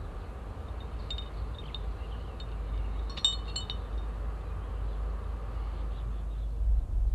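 An amber glass bottle clinks three or four times in quick succession about three seconds in, each clink ringing briefly, as it falls to the ground. A few faint high ticks come before it, a steady low rumble runs underneath, and a low thump comes near the end.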